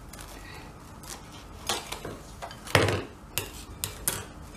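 Plastic cling film crinkling as it is stretched and pressed around the rim of a glass mixing bowl, with a few short sharp crackles and clinks against the glass, the loudest nearly three seconds in.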